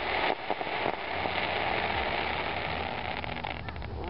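Firework shell bursting into crackling stars: a dense rain-like sizzle of crackles with a few sharp pops in the first second, easing off slowly, then a quick flurry of crackles near the end.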